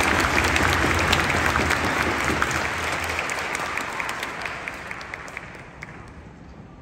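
A stadium crowd applauding, a dense spread of many hands clapping that dies away over the last couple of seconds.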